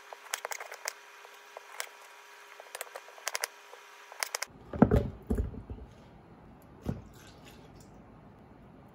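Small clicks and taps as sliced strawberries are picked up off a wooden cutting board, followed about halfway through by a few dull thumps.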